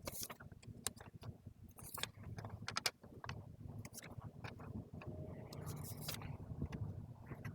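Scattered light clicks and paper scrapes as stiff index cards are tucked into the gap between a wheel's rim and its tire, with a low steady hum underneath that grows a little near the end.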